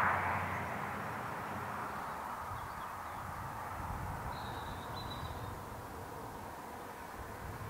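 Steam train working along the line in the distance, its sound fading over the first second or so to a faint, even rumble as it draws away. A short, high bird call comes about four and a half seconds in.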